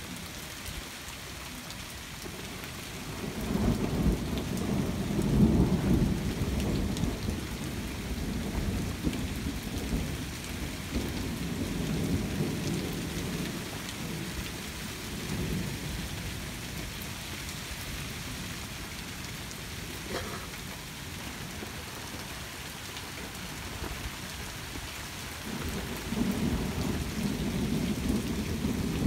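Thunder rumbling over steady rain. A long rolling peal swells about three seconds in and dies away over some ten seconds, and another peal begins near the end.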